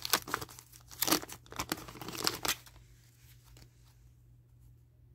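Wax-paper wrapper of a 1988 Fleer baseball card pack being torn open and crinkled: a quick run of rips and crackles that dies down to faint handling noise about halfway through.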